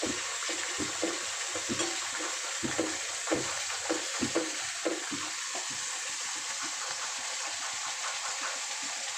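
Masala paste sizzling in hot oil in a metal kadhai while it is roasted (bhuna), with a metal spoon scraping and knocking against the pan as it is stirred. The stirring stops about six seconds in and the steady sizzle carries on.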